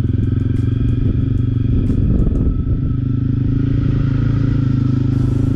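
Honda CRF250L single-cylinder motorcycle engine running steadily under way, with a few clattering knocks about two seconds in.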